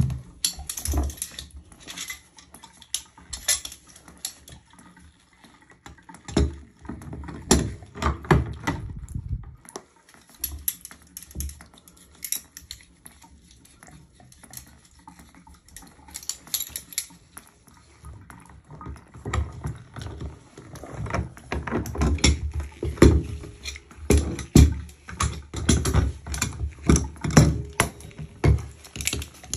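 Tongue-and-groove pliers clicking and scraping against a chrome bathtub drain stopper as it is gripped and twisted to unscrew it. Irregular metallic clicks and knocks, in a busy stretch about six seconds in and again from about twenty seconds in.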